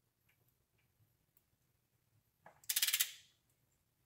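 Ratchet wrench clicking in a quick run of about half a second as it is swung back on a cylinder head bolt during tightening, about two and a half seconds in; a few faint ticks before it.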